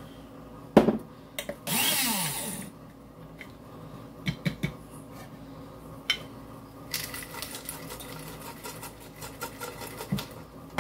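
Glass canning jar and electric grinder cup handled on a tabletop. A sharp knock comes about a second in, then a short rushing noise and scattered clicks and taps. Several seconds of rustling and scraping follow, ending in another knock.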